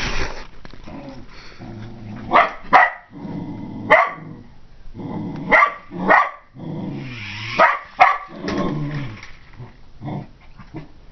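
Dog barking about seven times in sharp bursts, with low growling between the barks, at a remote-control toy car chasing it.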